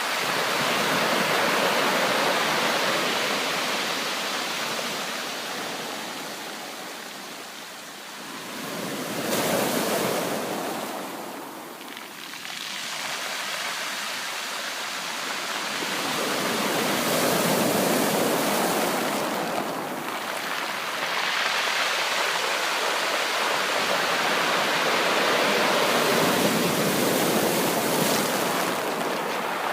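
Sea waves washing onto a shore: a continuous rushing hiss that swells and ebbs in slow surges every several seconds.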